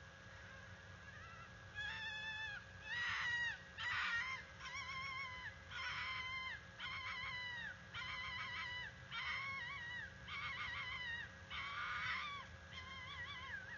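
Female fox calling its mating call: a run of harsh, scream-like cries with a wavering pitch that dips at the end of each, about one a second, starting about two seconds in.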